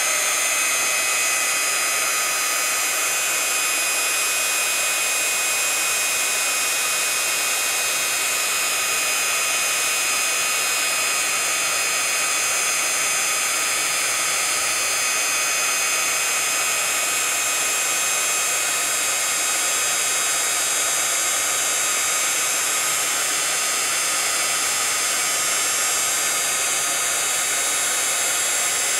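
Craft heat gun blowing steadily: a constant rush of air with a steady fan whine, as it melts embossing powder on a foil-covered tag.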